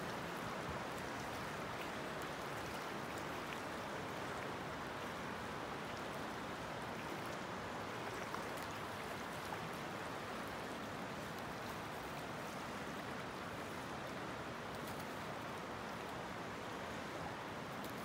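Steady rush of flowing river water, even and unbroken.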